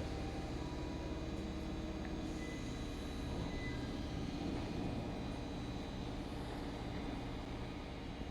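Electric train humming steadily at a constant level, with a few thin high-pitched tones over a low drone and no wheel clatter.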